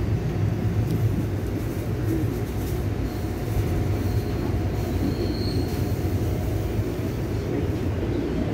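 Trolley car in motion: a steady low rumble with faint, thin squealing from the wheels on the rails, which grows briefly stronger about five seconds in.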